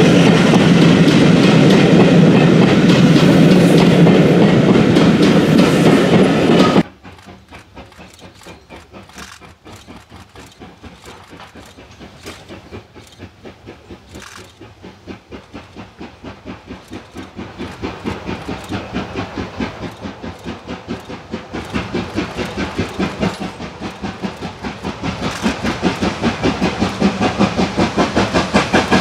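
Train of coaches running close by, a loud steady rumble with wheels clattering over the rail joints, cutting off abruptly about seven seconds in. Then a steam locomotive working a train out of a tunnel, its exhaust chuffing at about four beats a second and growing steadily louder as it approaches.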